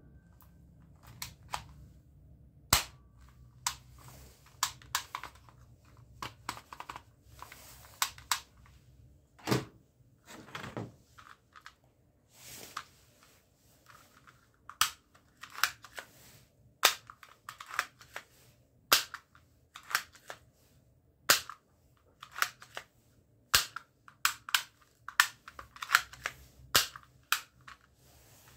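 Spring-powered plastic toy airsoft guns being cocked and fired: an irregular string of sharp clicks and snaps, several dozen of them, with a few longer rasps in between.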